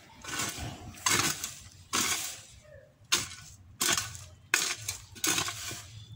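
A garden hoe chopping into damp soil to grub out weeds. There are about eight sharp strikes, roughly one a second, each followed by a short gritty scrape of earth.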